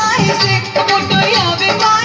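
Loud Bhojpuri song: a singer over instrumental backing with a steady beat, played for stage dancing.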